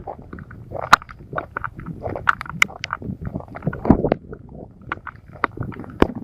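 Footsteps and handling noise as someone walks over wet, rough ground, with irregular sharp clicks and knocks over a low rumble.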